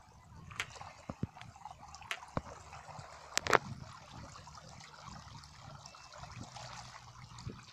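Water trickling and dripping in a small channel dug in mud, with a few sharp wet slaps and clicks from hands packing mud around a plastic grille. The loudest pair of clicks comes about three and a half seconds in.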